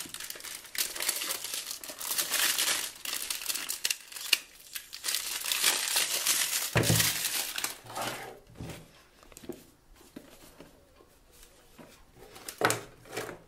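Plastic shrink-wrap being torn and pulled off a cardboard phone box, crinkling and crackling for about seven seconds. After that it goes quieter, with a couple of soft bumps as the box is handled.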